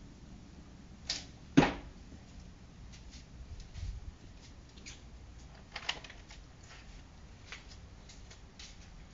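An arrow shot from a recurve bow: a short snap about a second in as the string is released, then half a second later a sharp, loud thud as the arrow strikes. Fainter clicks and taps follow.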